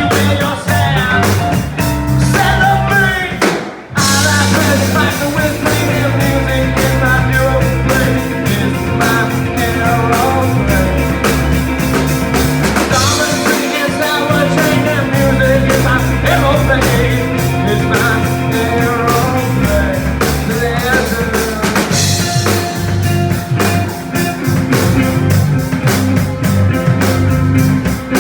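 Live rock band playing, with singing, drum kit, bass guitar and electric guitar. The music breaks off for a moment about four seconds in, then comes straight back in.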